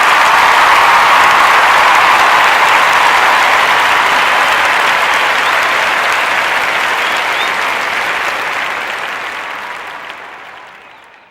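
Crowd applauding, steady and loud, then fading out over the last few seconds.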